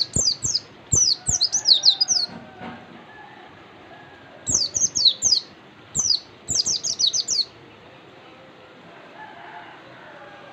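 Pleci (white-eye) singing in fast bursts of short, high, downward-sweeping chirps, three runs of song in the first seven and a half seconds and then quieter.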